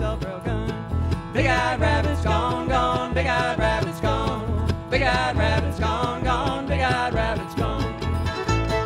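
Acoustic string band playing a bluegrass tune: upright bass, acoustic guitar and fiddle together, with a wavering melody line over the bass.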